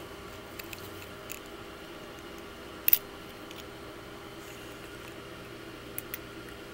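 Small metal parts of a T-handle tap wrench clicking and clinking as they are handled and fitted together, with a sharper double click about three seconds in and a couple more near the end. A faint steady hum lies underneath.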